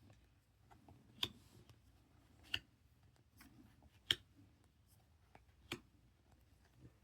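Chrome trading cards being handled and flipped through by hand: faint, sharp clicks of card against card, four clearer ones about a second and a half apart with softer ticks between.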